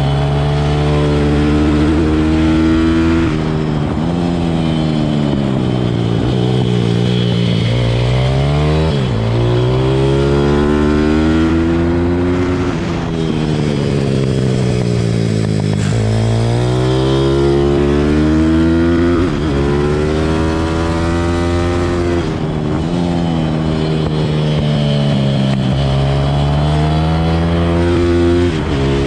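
Pit bike engine ridden hard around a track. The engine note climbs in pitch over and over, with sharp drops every few seconds as the rider changes gear or backs off for corners.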